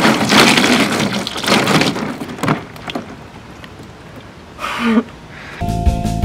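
Homemade Jell-O and flour slime poured out and splattering wetly, loudest in the first two seconds and trailing off into a few smaller squelches. A short cry follows, and music starts near the end.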